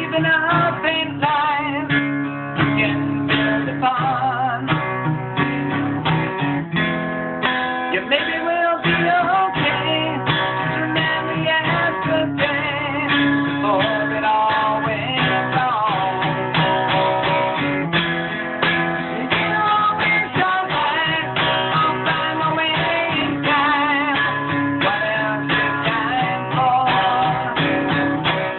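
Acoustic guitar played continuously, strummed and picked, recorded on a phone with poor sound quality.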